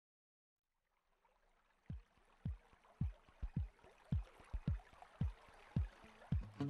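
Intro sound design: a faint hiss fades in after a moment of silence. Over it comes a string of soft, low thumps that each drop in pitch, spaced irregularly about half a second apart.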